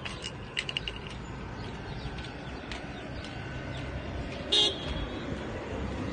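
A single short vehicle horn toot about four and a half seconds in, over steady street background noise.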